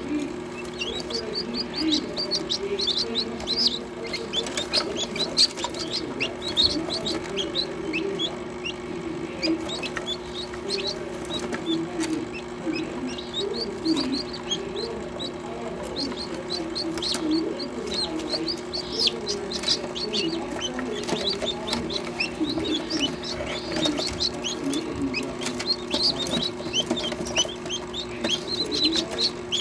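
Newly hatched guinea fowl keets peeping: a constant stream of many short, high chirps over a steady low hum.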